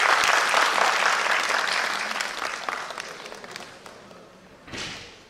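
Audience applauding, loud at first and then dying away over about four seconds.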